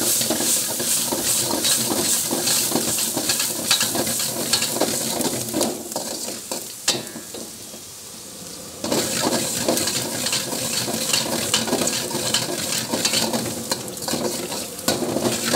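Chopped onions sizzling in hot coconut oil in a black wok while a long metal ladle stirs and scrapes against the pan. The sound drops away for a few seconds in the middle, then the stirring and sizzling pick up again.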